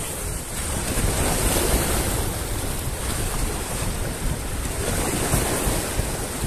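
Sea waves washing in and breaking against shoreline rocks, a steady rushing surf, with wind buffeting the microphone.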